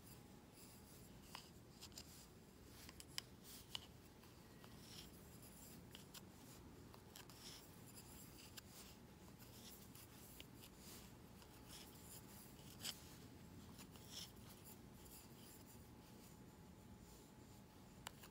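Quiet knitting: soft rubbing of wool yarn and scattered light clicks of wooden knitting needles as stitches are worked, over near silence.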